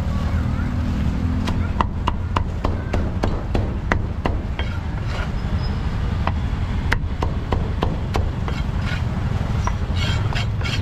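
Cleaver chopping roast duck on a thick round wooden chopping block: a quick, uneven run of sharp knocks, over a steady low rumble.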